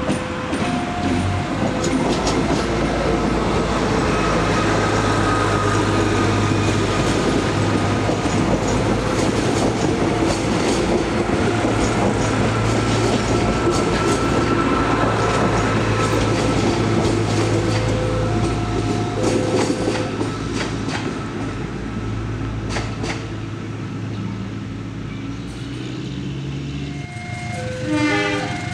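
Diesel commuter train passing close by: a steady engine drone with wheels clicking over rail joints, while a two-tone warning signal beeps back and forth. Near the end the engine note rises and a horn sounds briefly.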